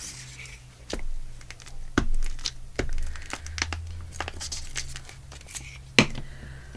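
Paper being handled, crinkling and rustling, with scattered taps and clicks; the sharpest click comes about six seconds in.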